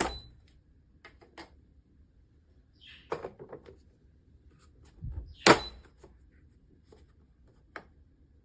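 Several separate knocks and clicks, the loudest a sharp knock about five and a half seconds in.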